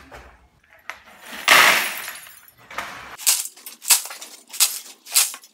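Nails and ash being scraped and scooped out of a steam locomotive boiler's firebox with a metal hand scoop: a long scrape, then a run of sharp metallic clinks and rattles about every half second.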